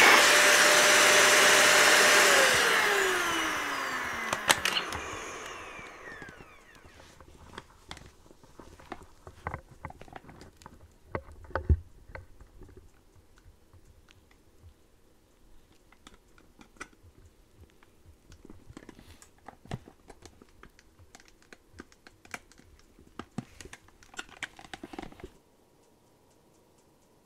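Dyson vacuum cleaner running, then switched off about two seconds in, its motor whine falling in pitch as it spins down. Scattered light clicks and knocks follow until the sound cuts out near the end.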